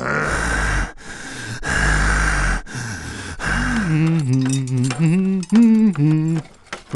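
A cartoon character's harsh, breathy snarling growl in four or five heaves, with a low rumble under it. About four seconds in it gives way to a different cartoon voice babbling wordlessly in a sing-song way.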